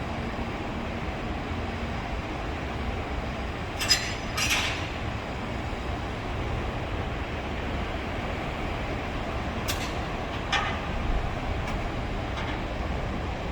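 Container freight train rolling slowly into a station: a steady low rumble of the wagons, broken by a few brief, sharp high-pitched squeals, the loudest about four seconds in and several more near the end.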